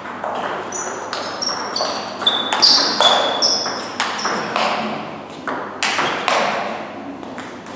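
Table tennis rally: the plastic ball clicking off the bats and bouncing on the table in a quick irregular series, many hits leaving a short high ping. Forehand topspin attacks off a bat faced with Palio AK47 Red rubber meet chopped returns.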